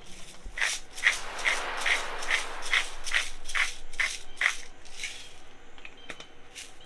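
Salt shaker shaken over a steak: about ten rattling shakes, roughly two and a half a second, each a burst of salt grains striking inside the shaker. A few faint clicks follow near the end as the shaker is handled.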